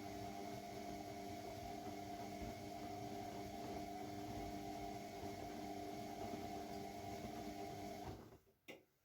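AEG Lavamat W 1450 washing machine running with a steady hum over a rough churning noise. It stops abruptly about eight seconds in, followed by a single sharp click.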